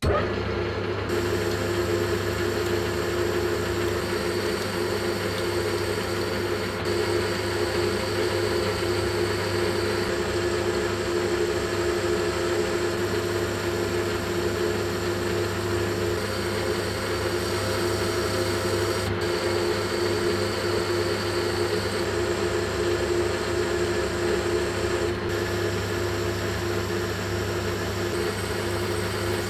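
Metal lathe running steadily, its motor and gearbox giving an even hum, while a carbide-insert tool makes a turning pass along a steel shaft.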